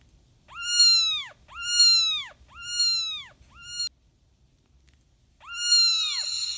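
Kitten meowing: four high-pitched meows in quick succession, each rising then falling in pitch, the last one cut short. After a pause of about a second and a half comes a longer fifth meow near the end.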